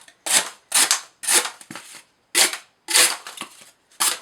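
Emerson Mini Commander folding knife slicing through corrugated cardboard in quick repeated strokes, each a short crackling tear, about every half second with a brief pause midway. The edge has just been resharpened.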